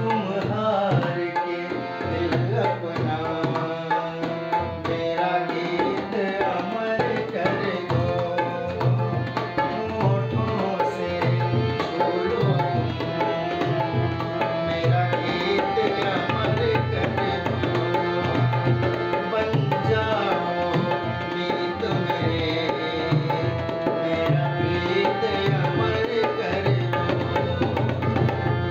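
Harmonium playing a melody over a steady rhythm on a dholak barrel drum, an instrumental passage between sung lines.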